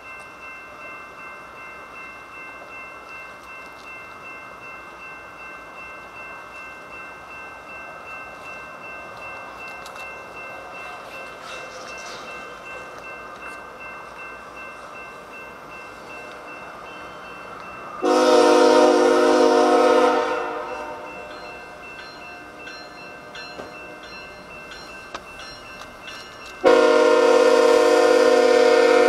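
Grade-crossing bell ringing steadily, then a BNSF locomotive's multi-chime air horn sounds two loud long blasts: the first about two-thirds of the way in, lasting a couple of seconds, and the second starting near the end and still going as the locomotive reaches the crossing.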